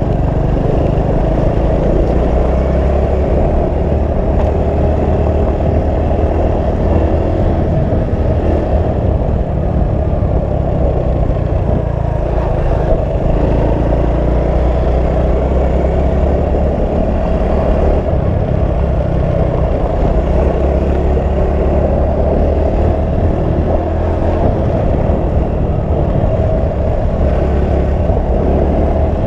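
Motorcycle being ridden: steady engine and road noise with no change in pace.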